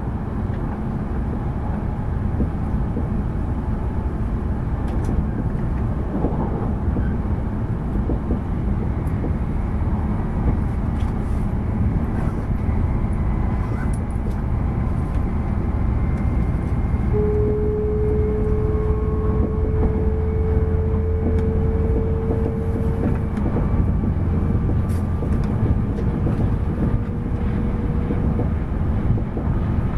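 Tohoku Shinkansen train running at speed, heard from inside the passenger cabin: a steady low running noise of the train in motion. A little past the middle a clear tone comes in and rises slowly in pitch for several seconds, then carries on more faintly.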